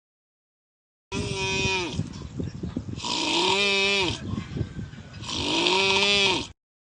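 Exaggerated, comic snoring: three long drawn-out snores with a wailing pitched tone that rises and falls in each, the last two carrying a loud airy hiss.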